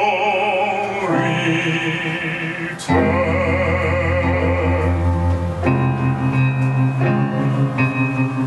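Live music: a male singer holds a long note with wide vibrato over grand piano and electric guitar. About three seconds in a deep bass note enters. After about six seconds the voice drops out and the guitar and piano chords carry on.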